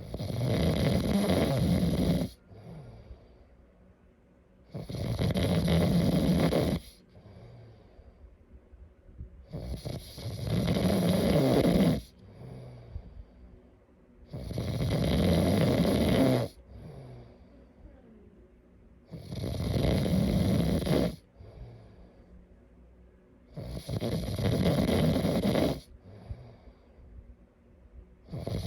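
A sleeping person snoring: six snores, each lasting about two seconds, coming steadily about every four and a half to five seconds, with quiet breathing between them.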